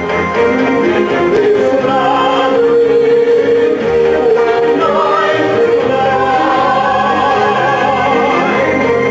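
Musical-theatre singing: a voice with marked vibrato holds long notes over sustained instrumental accompaniment.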